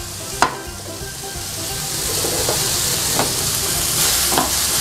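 Zucchini sautéing in a frying pan, the sizzle quieter at first and building back up over the next few seconds, with a few sharp knocks of a wooden spoon against the pan.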